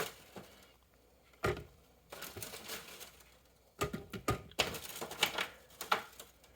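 Small harvested potatoes being handled and set onto a kitchen scale: irregular clicks and knocks, a few at a time.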